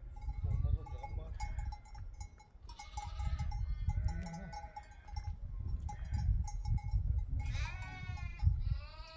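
Sheep bleating, several calls in turn with a long wavering bleat near the end, over a low rumble.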